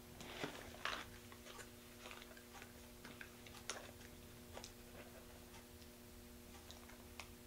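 A girl chewing a jelly bean: faint, scattered soft clicks of her mouth, with a couple of louder rustles in the first second and a steady faint hum underneath.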